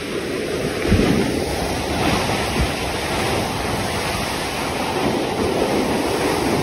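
A ship's bow wave rushing and splashing as the bow cuts through open sea, with wind rumbling on the microphone.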